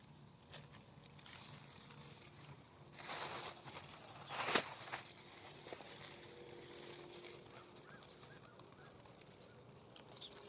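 Rustling of blackberry canes and leaves as berries are picked by hand, loudest between about three and five seconds in, with a sharp snap near the middle.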